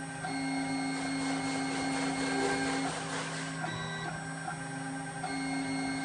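Desktop four-axis CNC router milling a metal part held in a rotary chuck. The spindle runs at a steady pitch while the stepper motors give off whining tones that stop and restart as the axes move and pause. A hiss of cutting rises through the middle.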